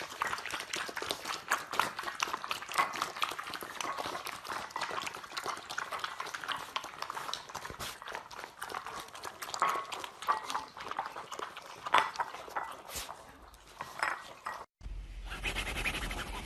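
Puppies eating from ceramic bowls: rapid wet lapping and chewing, with small clinks against the bowls. About a second and a half before the end it cuts off and gives way to a low hum.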